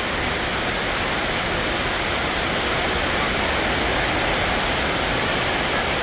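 Steady rushing hiss of background noise under a covered market hall, even and unchanging, with no distinct events.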